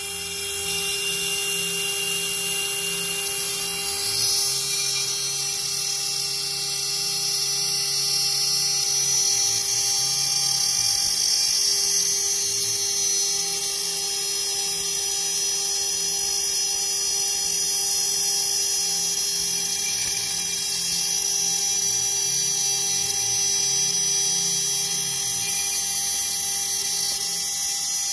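High-speed CNC spindle whining steadily as a small end mill cuts through a carbon fiber sheet under a stream of water.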